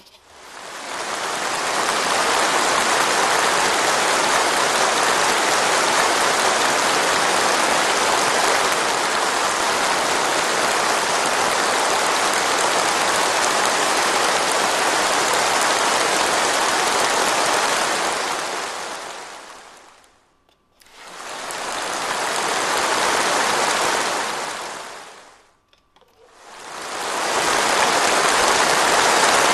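A large crowd applauding in a dense, unbroken clatter of clapping. It fades out about two-thirds of the way through and swells back, then fades out and swells back once more near the end.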